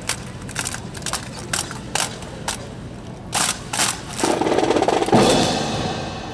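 Drill rifles clacking in a rifle fancy drill: a string of sharp, irregular clacks, then, about four seconds in, a louder and denser rush of sound lasting about two seconds that fades out.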